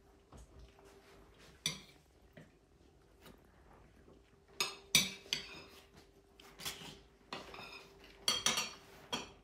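Cutlery clinking against plates and dishes: a string of separate sharp clinks with short ringing, sparse at first and coming thicker in the second half.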